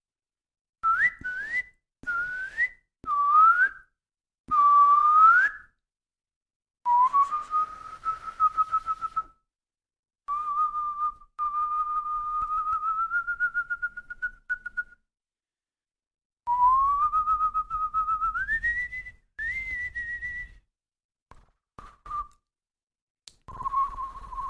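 A person whistling a series of random, unmelodic notes. It begins with four short whistles that slide upward, then moves to longer held whistles, one of which climbs slowly in pitch before jumping higher.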